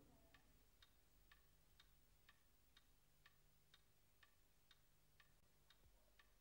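Clock ticking faintly and evenly, about two ticks a second.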